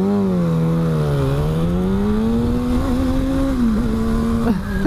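Motorcycle engines accelerating as a Kawasaki ZX-6R and a Yamaha dirt bike pull away together. The main engine note dips about a second in, climbs steadily for a couple of seconds, then drops near the end.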